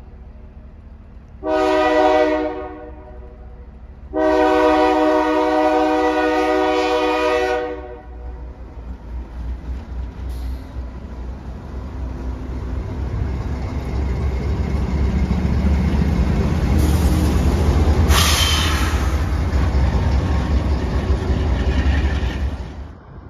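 Diesel locomotives of a Lake Superior and Ishpeming freight train sounding their air horn for a grade crossing: a short blast, then a long blast, each several notes sounded together. The locomotives then pass close by, their engines growing louder with a brief high squeal, before the sound cuts off suddenly.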